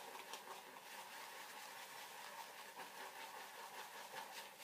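Wet shaving brush being swirled and pressed against a softened mint shaving soap in a bowl, the bristles making a faint, even scratchy scrubbing with many tiny ticks as the first lather starts to form.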